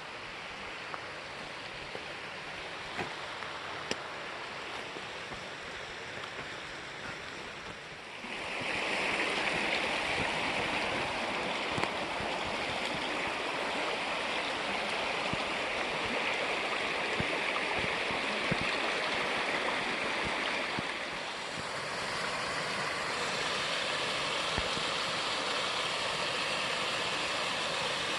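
Rushing water of a mountain creek, a steady noisy rush that grows suddenly louder about eight seconds in and shifts slightly in tone near the end.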